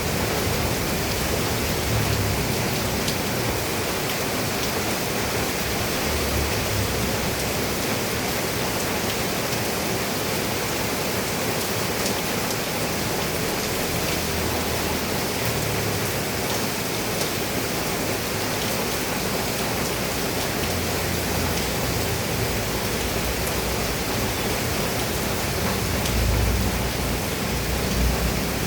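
Steady rain falling on a roof, an even hiss with low rumbles now and then, strongest near the end.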